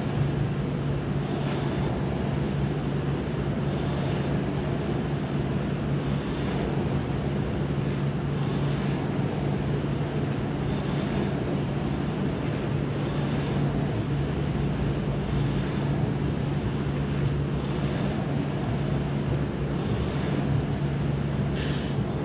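Concept2 air rowing machine's flywheel fan whirring steadily as it is rowed, with a brief surge of whoosh about every two seconds on each drive stroke.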